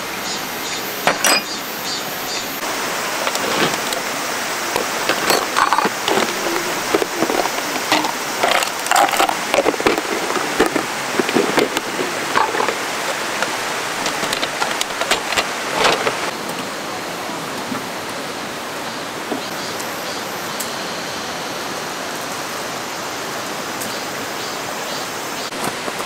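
Steady rush of a valley stream, overlaid for the first two-thirds by frequent light clinks and knocks of camp gear being handled. The clinks stop about 16 seconds in, leaving only the water.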